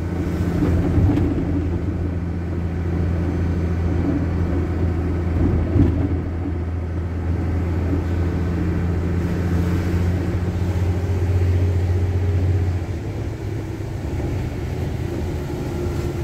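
A truck's diesel engine running under way, a steady low drone heard from inside the cab. The drone drops off about thirteen seconds in.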